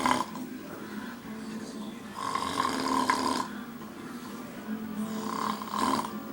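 A man snoring in his sleep, one long snore about two seconds in and another about five seconds in, roughly three seconds apart.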